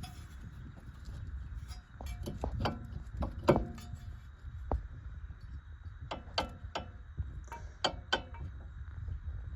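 Scattered sharp metallic clinks and knocks of hand tools and suspension parts being handled during front-end work, about a dozen strikes, loudest about three and a half seconds in, over a steady low rumble.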